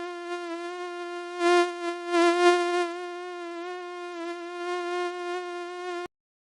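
Mosquito whine sound effect: a steady, high, thin buzz of beating wings that swells louder twice, as if flying close past the ear, then stops abruptly about six seconds in.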